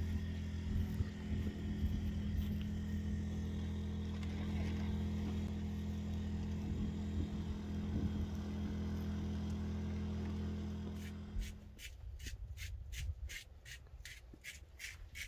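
An engine running steadily with a low, even hum, which stops about twelve seconds in; then faint high ticks, about three a second.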